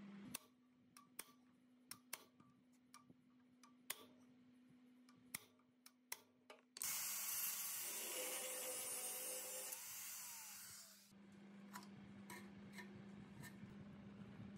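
Angle grinder cutting metal at the rusted terminal box of an old three-phase electric motor: a loud, steady grinding noise of about four seconds, starting suddenly midway. It is preceded by a scattering of small clicks and taps.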